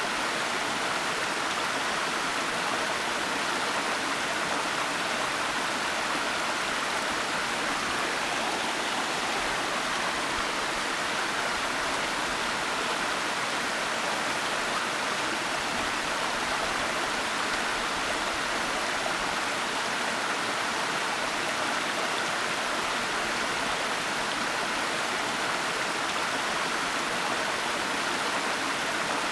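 Waterfall: a steady, unbroken rush of falling water, even in level throughout with no separate splashes standing out.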